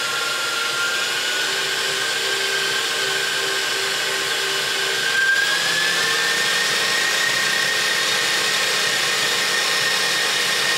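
KitchenAid Professional 5 Plus stand mixer's motor running with a steady whine. The pitch steps up about a second in and again about five seconds in as the mixer is switched to higher speeds.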